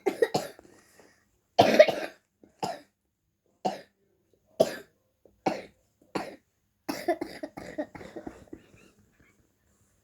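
A young girl coughing: about ten separate coughs over nine seconds, the loudest about two seconds in, with a closer run of coughs near the end.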